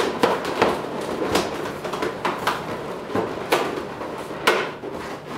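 Inflated latex balloons squeaking and rubbing against each other as a balloon cluster is pressed and twisted into place in an arrangement, about ten sharp squeaks and rubs in quick succession.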